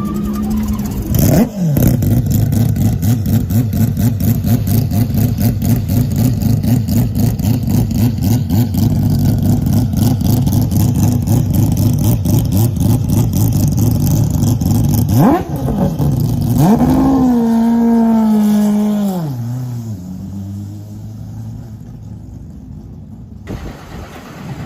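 Mazda 767B's four-rotor rotary race engine running loud and high with a dense, fast-pulsing note, dipping briefly just over a second in. Late on, the revs rise and fall once, and then the engine settles to a quieter, low idle.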